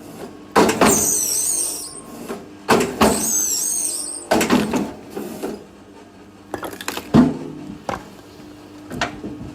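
Firewood being split: a sharp hit about every two seconds, five in all. After the first two hits the wood cracks and creaks apart for a second or so, with a high squealing of tearing fibres.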